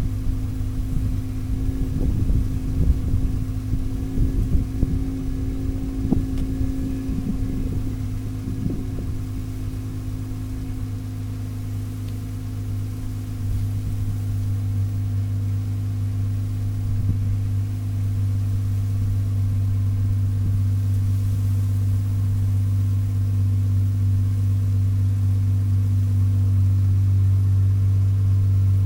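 Acura TL Type-S 3.2-litre V6 idling through straight pipes with no mufflers, a steady low exhaust drone. It sounds choppy and uneven for the first several seconds, then settles and grows slowly louder without any revving.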